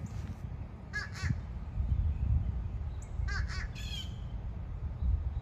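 Two birds squawking back and forth: a quick pair of calls about a second in, then a run of three or four answering calls just after three seconds.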